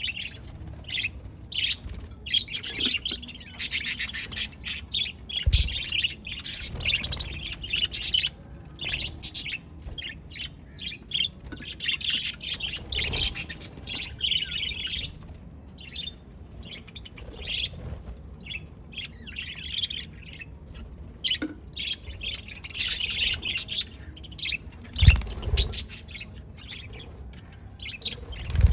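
Budgerigars chirping continuously, a dense run of short high chirps and squawks, with a brief low thump about five seconds in and a louder one near the end.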